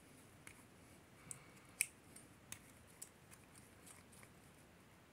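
Faint clicks and light scraping of small metal air-rifle valve parts being turned and threaded together by hand, with a handful of sharper ticks, the loudest a little under two seconds in.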